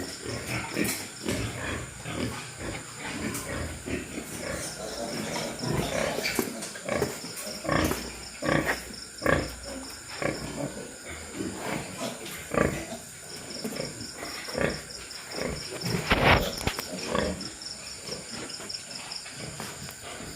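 Pigs grunting and squealing in short, irregular bursts, the loudest squeal about 16 seconds in. A high, pulsing insect trill runs faintly behind.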